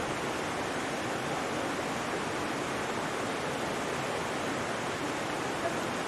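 Waterfall: water pouring and spraying down a rock face, a steady even rush.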